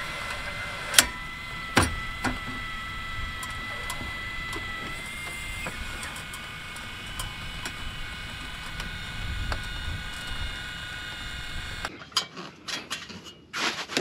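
Electric motor of a roof-top tent running with a steady whine over a low rumble, its pitch stepping slightly about halfway through, with two sharp clicks about a second in. Near the end the whine gives way to a few irregular clicks and knocks.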